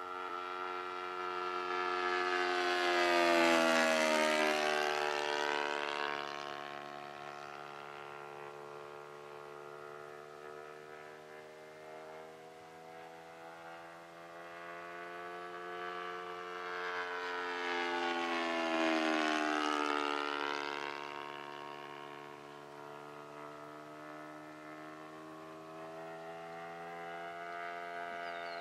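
Saito FG-20 four-stroke single-cylinder gas engine of a radio-controlled Cessna 182 model airplane flying by overhead twice. The engine swells as the plane approaches and its pitch drops as it passes, about three seconds in and again near nineteen seconds, then fades to a steadier distant drone.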